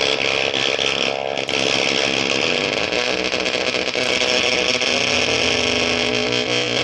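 Electric guitar played through a homemade sample-rate reducer/stutter fuzz circuit built on a breadboard, giving a dense, continuous, heavily distorted tone at a steady level.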